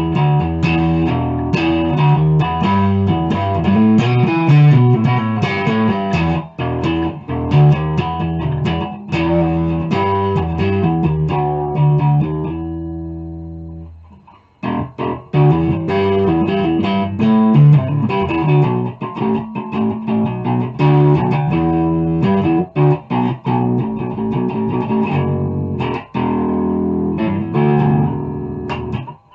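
Electric bass guitar, a Chinese copy of a Rickenbacker neck-through bass, played in a steady run of notes. About halfway through, one note is left to ring and fade out, then the playing picks up again.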